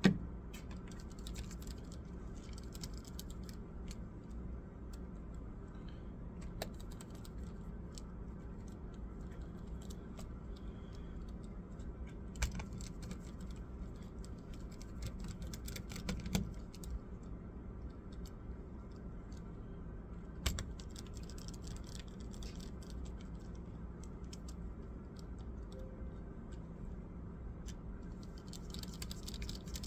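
Scattered light clicks and taps from hands working on a Dell laptop, with a few sharper knocks now and then, over a steady low hum.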